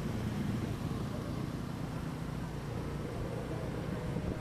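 Steady vehicle engine and road noise while moving in traffic: a low, even rumble with no horn sounding.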